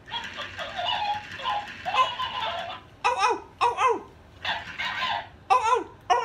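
A person giggling and laughing: a breathy stretch of laughter followed by several short, high-pitched bursts falling in pitch.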